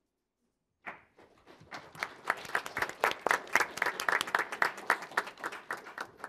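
A small audience applauding: the clapping starts about a second in after a brief hush, builds, and thins out near the end.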